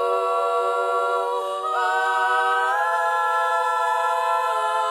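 Vocal ensemble singing a cappella, holding a sustained chord in close harmony; the voices step up to a new chord about two seconds in and again about three seconds in.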